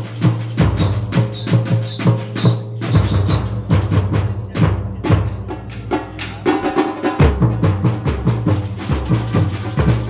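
Samba percussion ensemble playing live: deep bass drum beats under sharper drum and percussion strokes in a steady, driving rhythm.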